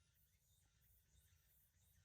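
Near silence: only a very faint hum and hiss.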